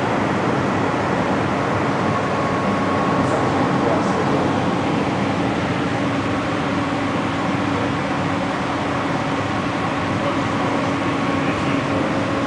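Steady machinery hum and hiss of a public aquarium hall, with a low drone and a fainter higher tone running through it.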